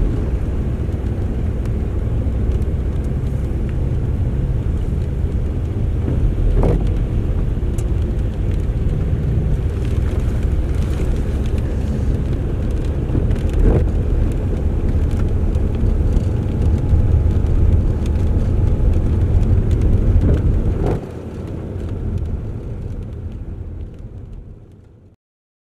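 Car driving on a wet road, heard from inside the cabin: a steady low rumble of engine and tyre noise with a hiss from the wet tarmac and a few light knocks. The level drops about three quarters of the way through and fades out near the end.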